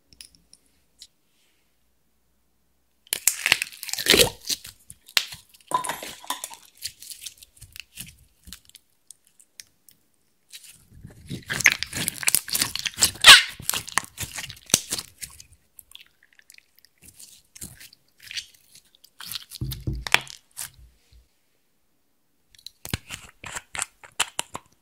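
Crunching and crackling of makeup being crushed and crumbled by hand over a glass dish, in several bursts. The loudest burst comes a few seconds after ten seconds in, and a low thud comes around twenty seconds. Quick clicks near the end come as a small lip-colour bottle is opened.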